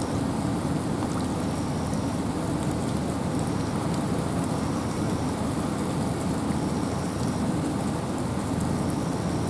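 Steady rain and wind in a forest: an even, unbroken rushing hiss, heaviest in the low range.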